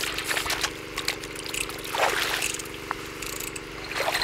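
Shallow water splashing and sloshing as hands work in it at the water's edge, in irregular bursts (one near the start, one about two seconds in, another near the end), over a steady low hum.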